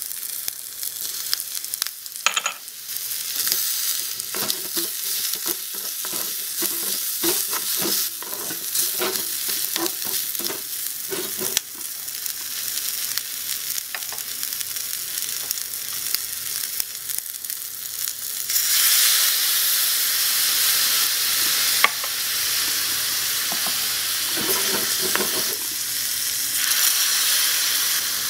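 Food frying in a miniature aluminium wok over a tiny gas flame: a steady sizzle with the clicks and light scrapes of stirring. The sizzle turns markedly louder about two-thirds of the way through.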